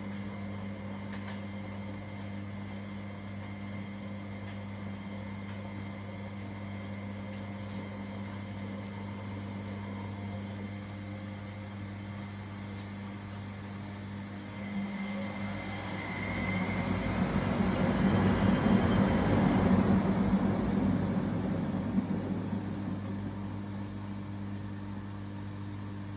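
Miele front-loading washing machine in a suds lock from too much foam: a steady low hum, then about halfway a rushing noise swells for several seconds and dies away again.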